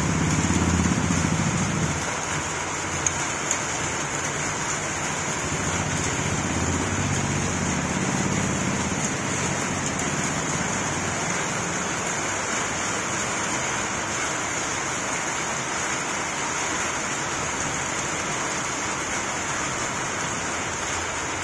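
Steady rain hiss, with rain drumming on a tin shed roof and splashing onto a wet rooftop floor. A low rumble rises under it during the first two seconds and again around six to nine seconds in.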